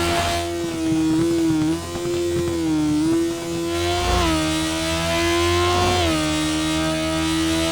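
Motorcycle engine running at riding speed. The revs rise steadily and then drop sharply about six seconds in, like a gear change under acceleration, with smaller dips in pitch earlier.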